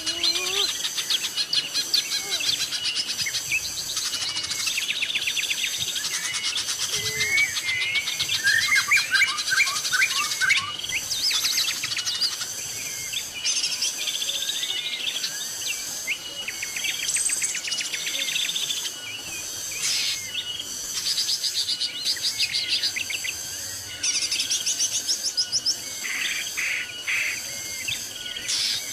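Tropical forest ambience: many birds chirping and trilling over a steady high-pitched insect drone.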